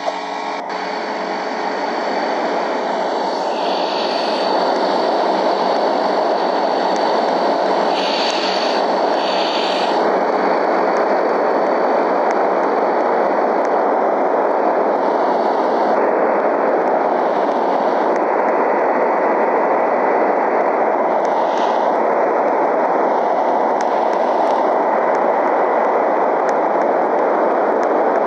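Steady whooshing noise of an air conditioner running, fading in over the first few seconds and then holding even.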